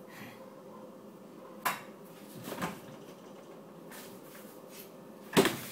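Kitchen items being handled and set down, giving a sharp knock a little under two seconds in, a smaller clatter a second later, and the loudest knock near the end.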